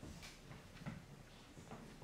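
Faint footsteps on a stage floor: about three slow, evenly spaced steps as a man walks across to a door.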